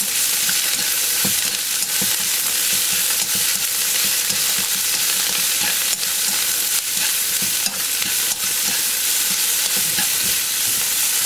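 Garlic chives and carrot strips sizzling in oil in a wok over high heat, a steady frying hiss, with a few light clicks as chopsticks stir and toss them.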